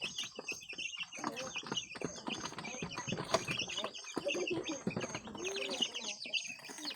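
A flock of native chickens calling: a constant chatter of short high chirps, with lower clucking calls that bend in pitch, some a few seconds in.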